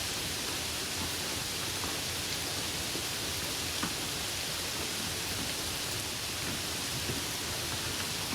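Steady rain falling, an even hiss with a few faint drop ticks now and then.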